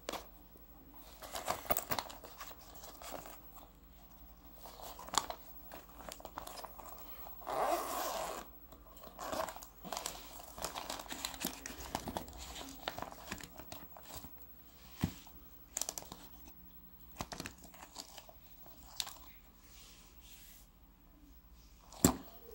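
Hands handling a nylon carry bag with a clear plastic window and the jumper cables inside: fabric and plastic rustling and crinkling, with scattered clicks and knocks from the cables and clamps. There is a longer rasp about eight seconds in and a sharp knock near the end.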